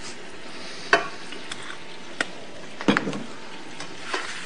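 Kitchen sounds while cooking: a steady sizzling hiss from a pan on the stove, with a few sharp knocks of pans and utensils, the loudest about a second in and near three seconds in.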